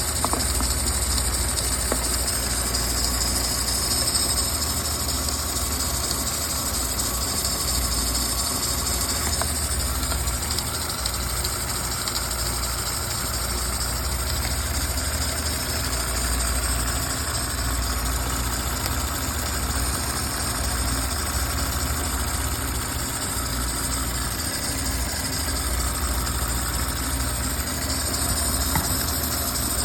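Audi A6 3.0L engine idling steadily with a constant hiss over it. The uploader ties the engine noise to coolant leaking onto the alternator belt from a failed water pump vacuum solenoid valve.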